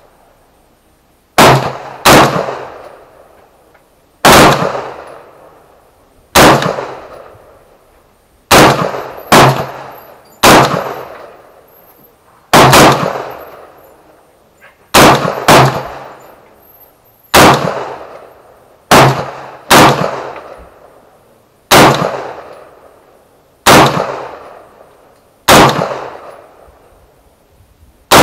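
AR-15-pattern rifle fired in slow single shots, about sixteen in all, mostly one every one to two seconds with a few quicker pairs. Each shot is sharp and loud and trails off in an echo.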